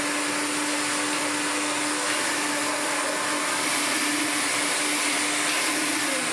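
Electrolux Twin Turbo vacuum cleaner running steadily, a constant hiss over a steady motor hum, its pitch starting to drop right at the end. It sounds healthy, with nothing wrong with it, holding up well for a machine about 30 years old.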